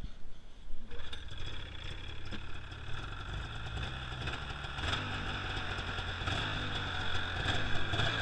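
Snowmobile engine starting up and then running steadily, getting a little louder about five seconds in.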